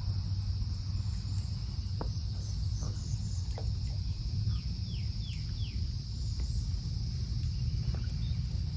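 Steady high insect drone, crickets or similar, over a low rumble, with a few short falling bird chirps, three in quick succession about halfway through.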